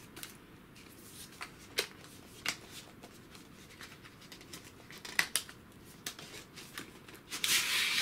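Eyeshadow palette packaging being opened by hand: scattered light clicks and taps, with a longer rustle near the end.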